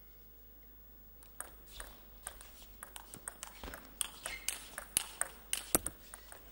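A table tennis rally: the ball clicks off the rackets and the table in a quick back-and-forth. It starts about a second in with the serve, the hits come faster and louder as the rally goes on, and they stop shortly before the end.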